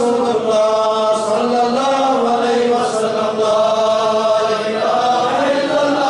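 Devotional chanting in long, held notes that waver slightly in pitch, continuing without a break.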